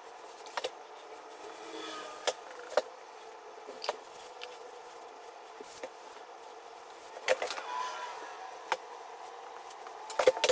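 Several scattered light clicks and knocks, each brief, over a faint steady hum with a faint wavering tone.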